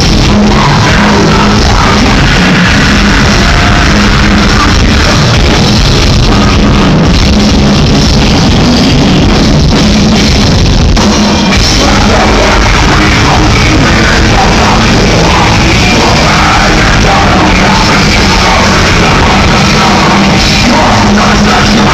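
Heavy metal band playing live at high volume, with guitars and a drum kit, heard from the crowd.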